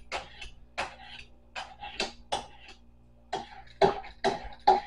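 A vegetable peeler scraping down the skin of a vegetable in short strokes, about two a second, with uneven gaps.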